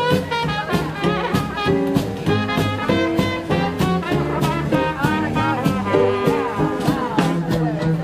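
Traditional New Orleans jazz band playing live: brass horns over a steady swing beat from the rhythm section.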